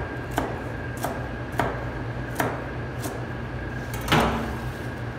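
Chef's knife chopping celery on a plastic cutting board: five separate cuts, about one every half second to second, then a louder knock about four seconds in. A steady low hum runs underneath.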